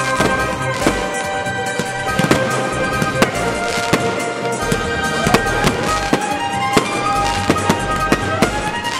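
Fireworks display: aerial shells bursting in quick, irregular bangs and crackles, several a second, over music with long held notes.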